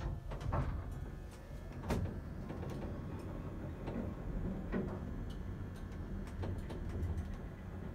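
Traction passenger lift car travelling down between floors: a steady low hum of the ride with a few scattered sharp clicks.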